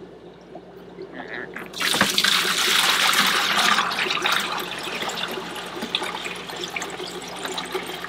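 Water poured and splashing into a plastic bucket. It starts suddenly about two seconds in, is loudest for a couple of seconds, then tapers off toward a trickle.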